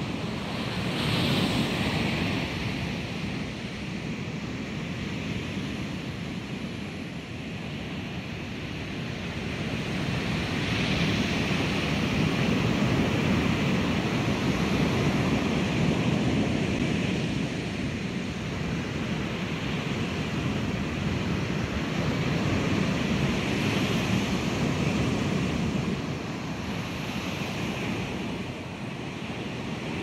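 Ocean waves crashing and washing ashore: several sampled wave crashes overlap into a continuous rush, each panned to its own place in the stereo field. It swells louder about a second in, again through the middle, and twice near the end.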